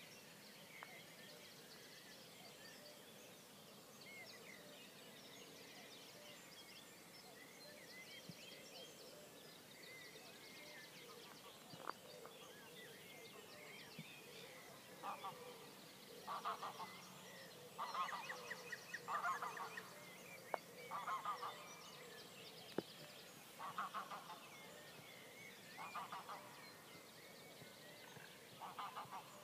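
Geese honking, a string of calls a second or two apart from about halfway through, over a steady dawn chorus of small songbirds. A few faint single clicks.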